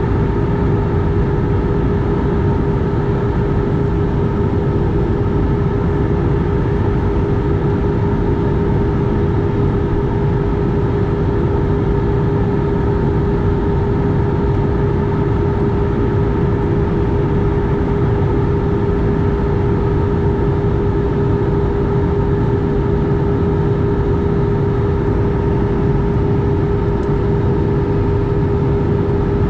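Airliner cabin noise in cruise, heard from a window seat beside the wing engine: a steady jet engine drone and airflow rush, with a steady mid-pitched hum running through it.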